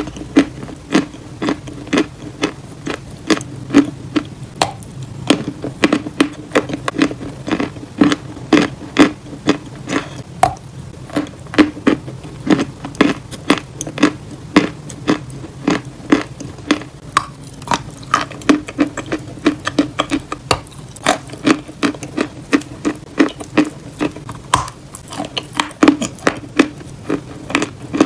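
Close-miked chewing of eating chalk: a steady run of sharp crunches and mouth clicks, about two to three a second.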